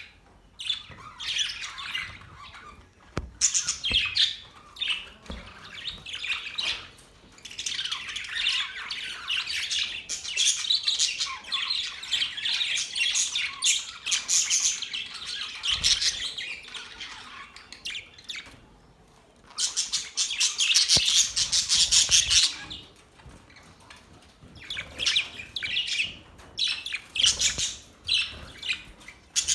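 Several budgerigars chattering and chirping in fast, high-pitched bouts with short lulls between, the loudest burst coming about two-thirds of the way through.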